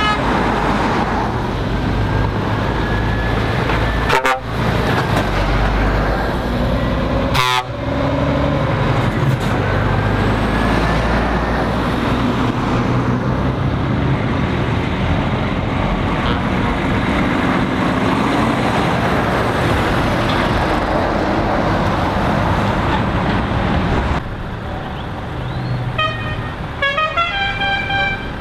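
Lorry and car engines running as heavy traffic passes, with tyre noise on the road. Near the end a lorry's horn sounds a quick run of several notes that step in pitch.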